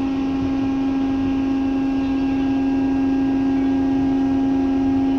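Steady mechanical hum aboard a container ship under way, a loud unchanging low tone with fainter higher tones over it, from the ship's engines and ventilation machinery.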